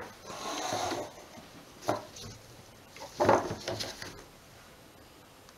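Plastic pitchers and a plastic bucket handled on a wooden tabletop: rubbing and a few light knocks, the loudest about three seconds in.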